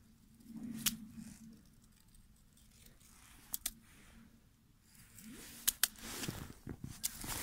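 A metal-mesh ice skimmer scraping and knocking against the rim of an ice-fishing hole as slush and ice chips are scooped out. Several sharp clicks come through the crunching and scraping, a pair a little past the middle and another near the end.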